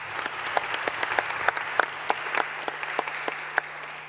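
An audience applauding: many hands clapping together, with some sharper individual claps standing out, easing off near the end.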